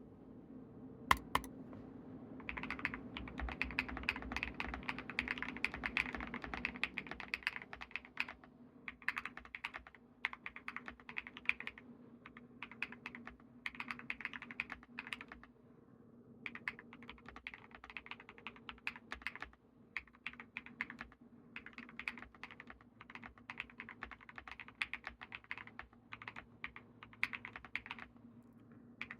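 Typing on a Monsgeek M1W mechanical keyboard with lubed BSUN Aniya switches, Akko Mod 007 flex-cut PCB and PBT keycaps: rapid key strokes in runs of a few seconds with short pauses between, a sound the owner calls thocky and marbley. A faint steady hum sits underneath.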